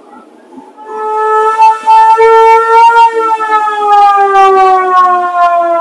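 An old vehicle's alarm siren starts about a second in and sounds loudly as one steady tone. It climbs slightly, then slowly drops in pitch, and is still sounding at the end.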